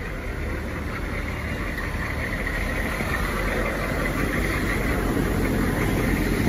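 Military truck engine, just jump-started, running with a rough, aggressive idle, as if it hasn't run in a long time. It grows gradually louder.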